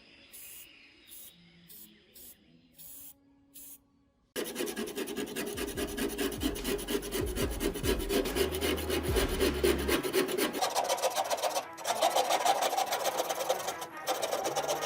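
Rapid, continuous rasping scrape, as of a file or abrasive being worked over a part of the welding tool, starting about four seconds in after a few seconds of near quiet.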